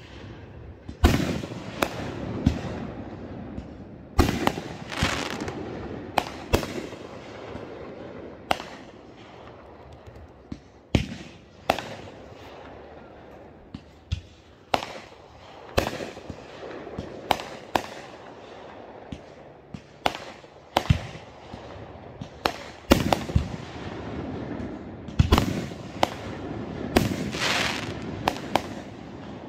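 Consumer aerial fireworks launching and bursting overhead: dozens of sharp bangs at irregular spacing, each trailing off in an echo.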